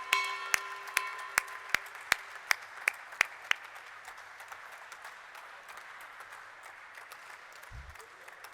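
Crowd applauding and slowly fading. In the first few seconds a run of sharp clicks comes about two and a half a second, and a ringing tone dies away about two seconds in. A brief low thump comes near the end.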